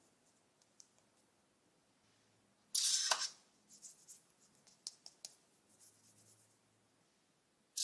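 Small plastic popsicle-mould sticks handled by hand: a short scraping rustle about three seconds in, then light clicks and taps as the sticks are swapped and set down on the table.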